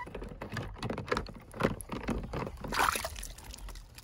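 Water splashing and sloshing in a plastic tub as a hand swishes through it, in irregular strokes, the loudest a little under three seconds in.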